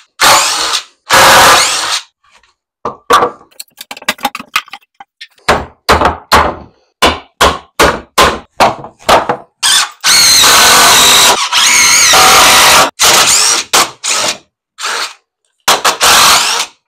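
A cordless drill-driver runs in short bursts and one long run, driving screws into wooden stair framing, with a high wavering whine during the long run. In between, a hammer strikes the wood in a rapid series of blows, about two or three a second.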